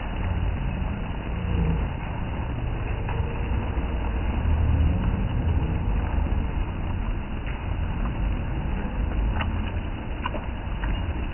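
Steady rain falling on wet stone paving, with wind buffeting the phone's microphone in a low, uneven rumble. A few faint taps near the end.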